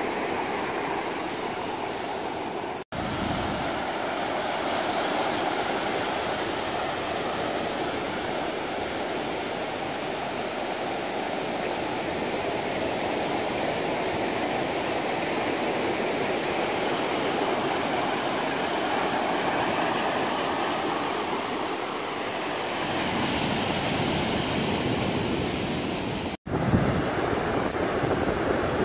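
Small waves washing in over a flat sandy beach, a steady rushing surf. The sound drops out twice for an instant, and after the second gap near the end it is a little louder with more low rumble.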